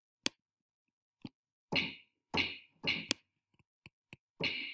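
A snare-like drum sound made from a recorded spoken 'k', run through a long reverb that a noise gate cuts short, played several times in a row: short sharp hits, each with a brief tail that stops abruptly, two in quick succession about three seconds in and a longer one near the end. A sharp click comes just before them, near the start.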